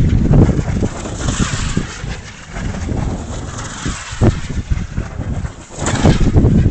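Strong wind of about 15 m/s buffeting the microphone: loud, low, gusty noise that swells and dips, easing briefly a little before the end.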